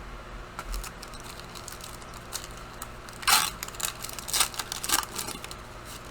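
Trading cards and foil pack wrappers being handled, giving several short crinkling, rustling bursts. The loudest comes about three seconds in.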